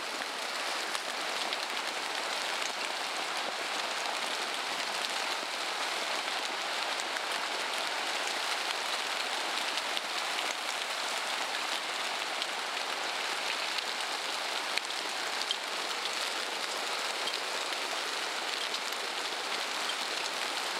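Heavy hail mixed with rain pelting down: a steady, dense hiss made of countless tiny impacts.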